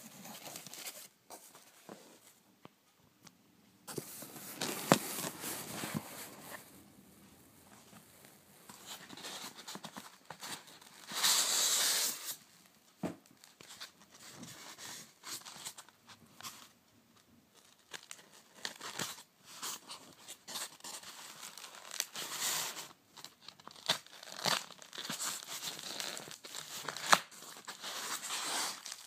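Styrofoam packing insert being broken and pulled apart by hand: irregular crunching, tearing and crackling, with a longer, louder stretch about eleven seconds in.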